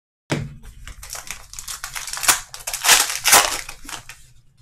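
Wrapper of a Panini Optic basketball card pack being torn open and crumpled, a dense crinkling that is loudest around three seconds in and then dies away.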